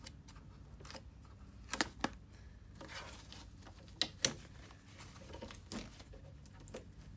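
Adhesive tape being peeled off a foam packing wrap, with the foam sheet crinkling and a few sharp crackles, the loudest about two and four seconds in.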